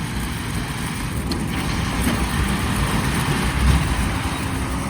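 Road traffic on a snowy city street: a steady rush of vehicles with a low rumble, growing louder as one passes about three and a half seconds in.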